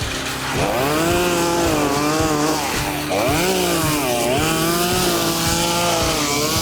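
Chainsaw running at high revs while cutting. Its pitch climbs, dips and climbs again several times as the load on the chain changes.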